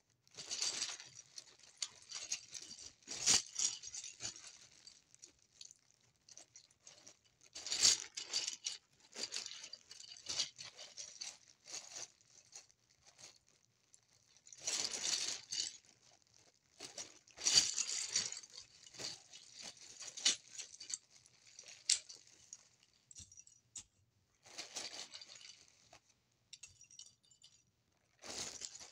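Plastic Lego bricks clattering and clicking as they are handled and sifted, in short bursts of rattling with quiet gaps between.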